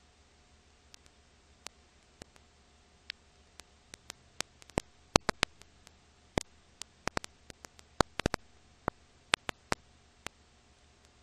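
Sparse, irregular clicks and pops over a faint steady hum and hiss, busiest in the middle, with no speech or music: surface noise on the track of a transferred 1926 silent film.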